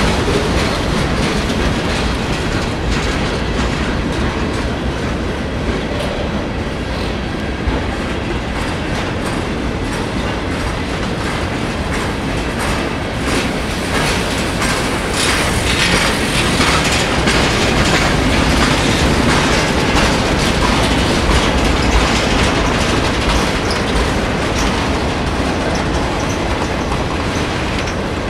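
A Norfolk Southern mixed freight train's boxcars and tank cars rolling past, steel wheels clicking and clacking over rail joints over a steady rumble, a little louder in the middle.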